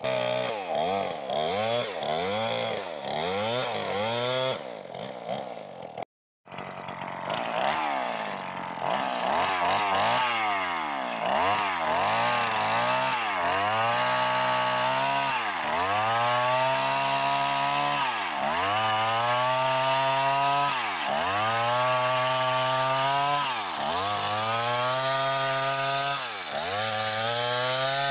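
Chainsaw running at high revs while cutting wood, its engine note dipping under load and climbing back over and over, at first about twice a second and later every second or two. Brief dead silence about six seconds in.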